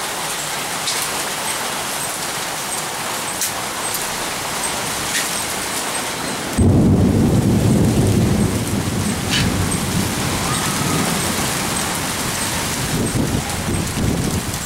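Steady rain, with a sudden low rumble of thunder about halfway through that is the loudest sound and slowly dies away over several seconds.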